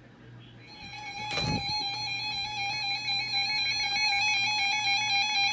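Electronic tones from a weather-radio recording: several steady pitches with a fast, even flutter, starting about a second in. A short low thump comes soon after the tones begin.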